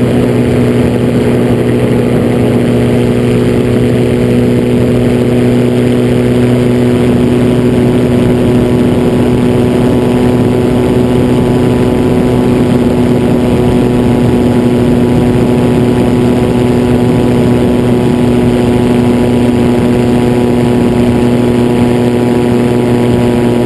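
Gyroplane engine and propeller droning steadily in flight, holding one even pitch throughout, with a constant rush of airflow noise.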